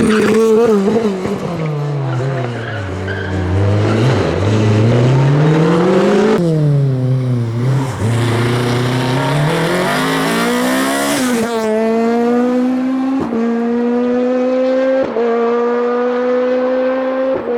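VW Golf IV KitCar rally engine at full load, its revs falling and rising through the first half. Then it holds a long high-revving pull, broken by two quick gear changes.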